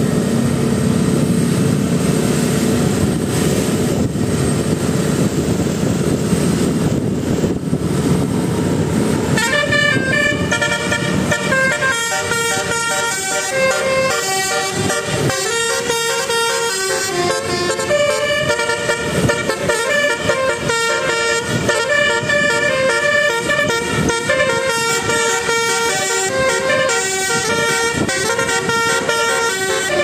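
Bus engine and road noise for about the first nine seconds. Then the bus's multi-tone telolet horn, a Basuri set, starts playing a tune of many short stepped notes and keeps going.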